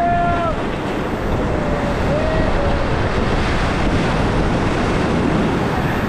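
Steady rush of river water around a raft, with wind buffeting the microphone. A person's voice calls out briefly right at the start.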